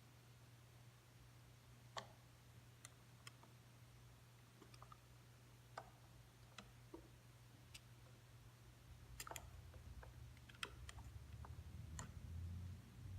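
Faint, scattered light clicks and taps of metal parts and hand tools being handled during work on a router's bearing, irregularly spaced, over a low steady hum.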